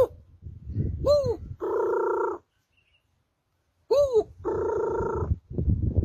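A man imitating a dove's cooing with his voice. Twice, a short swooping note that rises and falls leads into a steady, purring held coo, with a pause of about a second and a half between the two calls.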